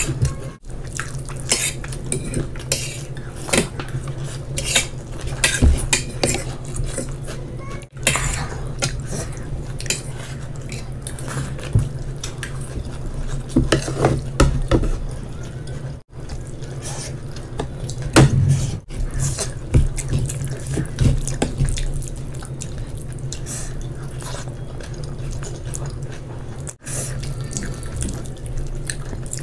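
Cutlery clinking and scraping on ceramic plates and bowls, mixed with the wet sounds of eating by hand, over a steady low hum.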